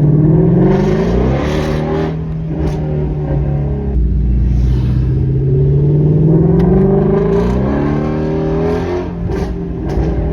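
Shelby GT350's 5.2-litre flat-plane-crank V8 accelerating, its pitch climbing and then falling back, twice over, with a deep rumble underneath.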